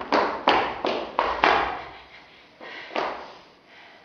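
Footsteps on a wooden stage floor: a quick run of sharp knocks, each with a short echo, about six in the first second and a half, then two more a little under a second later.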